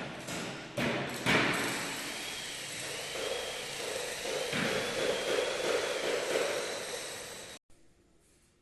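Milling machinery running with a steady hum and a faint rising-and-falling whine about once a second. Two knocks come in the first second and a half, and the sound cuts off suddenly near the end.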